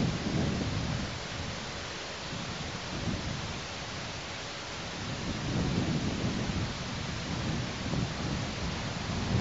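Wind gusting against an outdoor nest camera's microphone: low buffeting swells, strongest near the start and again about halfway through, over a steady hiss.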